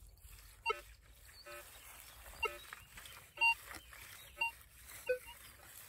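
Minelab Vanquish 540 metal detector giving short beeps of varying pitch as the coil is swept over the ground, about eight blips with the loudest about three and a half seconds in.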